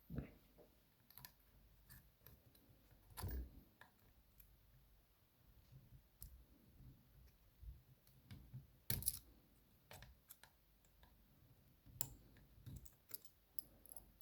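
Small metal tools clicking and scraping against the bendy C-clip on a DOM iX 6SR dimple lock cylinder held in a vise, as the clip is pried at. Sparse light clicks, with louder knocks about three seconds in and about nine seconds in.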